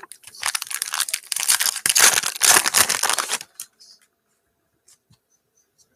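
Foil wrapper of a trading-card pack being torn open and crinkled by hand, a dense crackling for about three seconds that stops abruptly.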